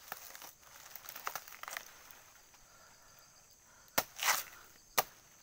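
Machete blade chopping into a banana plant's trunk: two sharp strikes about a second apart, near the end, with a short rustle just after the first and faint rustling of leaves before them.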